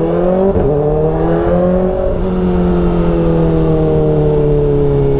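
Kawasaki Ninja ZX-4RR's inline-four engine under way. The revs climb for about two seconds, then ease off and fall slowly.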